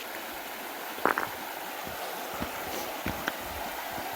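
Stream water rushing steadily, with a few short sharp knocks, a cluster about a second in and another near three seconds in.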